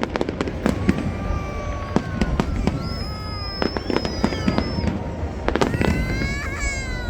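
Aerial fireworks bursting and crackling in rapid succession, with long high whistling tones held over the bangs for a few seconds at a time.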